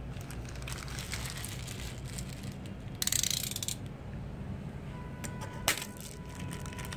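Crinkling of crumpled black foil wrapper bags from Funko Mystery Minis blind boxes, rising to a louder crumple about three seconds in. A single sharp click follows near the six-second mark.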